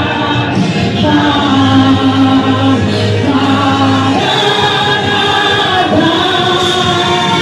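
A gospel vocal group singing a praise hymn in chorus, with long held notes that change pitch every second or so over a steady low bass note.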